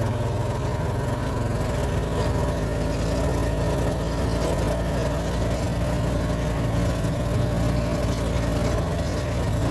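Engine of a small open farm utility vehicle running steadily as it drives across grass, heard from on board.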